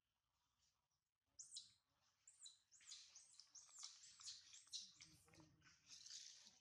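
Newborn macaque crying: a rapid run of high, arching squeals, several a second, starting about a second in.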